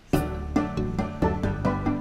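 Background music cutting in suddenly, with a steady beat of sharply struck pitched notes.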